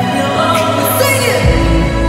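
Amplified live pop song: a woman singing lead over the band, with a deep bass coming in about one and a half seconds in.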